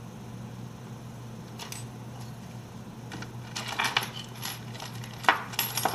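Small metal lock-picking tools, picks and tension wrenches, clinking and clicking against each other as they are sorted by hand: scattered light clicks, a quick cluster past the middle and one sharper click near the end.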